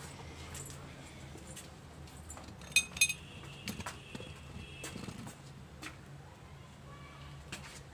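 Metal utensils clinking: two sharp, ringing metallic clinks close together about three seconds in, with a few softer knocks around them.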